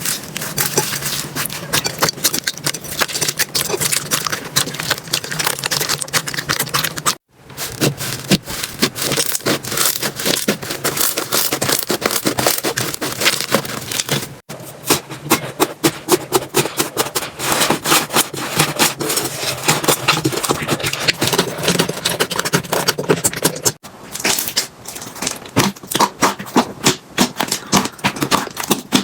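Slime being squeezed, poked and stretched by hand, a dense run of sticky crackles, clicks and pops, in several short clips that cut off abruptly three times.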